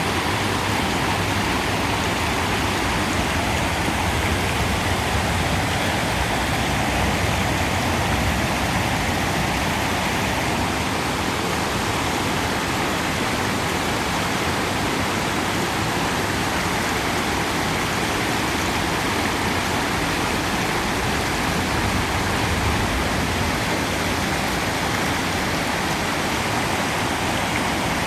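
River water flowing and rushing over rocks in a steady, even rush.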